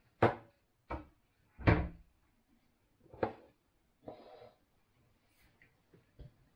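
Kitchen cupboard and small glass jars knocked and set down on a worktop: four sharp knocks in the first three and a half seconds, the third the loudest, then a short rasp about four seconds in.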